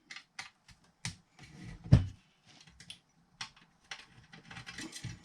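Irregular small clicks, taps and scrapes of a car radio unit and screwdriver being handled during disassembly, with a louder knock about two seconds in.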